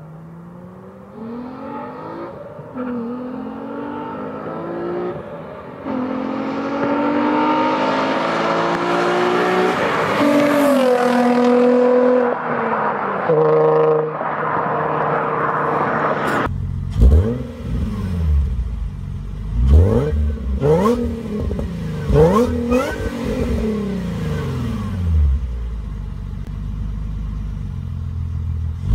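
Nissan 350Z's 3.5-litre V6 (VQ35) accelerating hard past on the road, rising in pitch and growing louder as it nears, with upshifts. Then the V6 is revved in place through its aftermarket exhaust, a series of sharp throttle blips that rise and fall.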